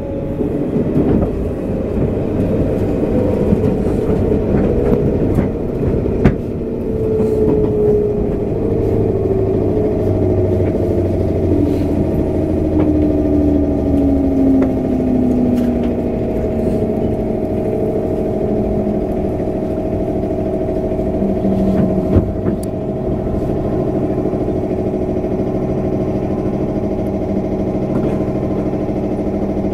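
Running sound of a JR West 201 series thyristor-chopper electric multiple unit heard from inside the car: a steady rumble of wheels on rail with a motor whine that falls in pitch about a third of the way through, then holds a steadier tone. A couple of sharp clicks stand out, one about six seconds in and one past the middle.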